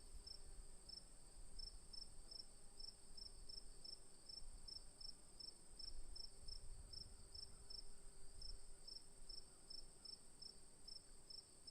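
Crickets chirping, faint: a steady high-pitched trill with a regular chirp about three times a second over it.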